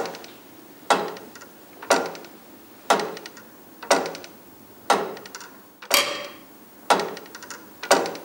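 The Peter and Paul Cathedral's tower clock mechanism ticking steadily once a second, driven by its seconds pendulum. Each tick is a sharp metallic click from the escapement that rings briefly. One beat about six seconds in is brighter, with a higher, longer ring.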